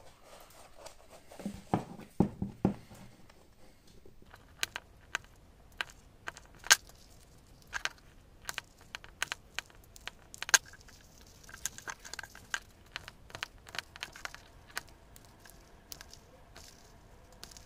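Rotary hole punch pliers punching 3 mm holes, one after another, through the edge of a faux-leather bag: a string of short, sharp clicks at irregular intervals.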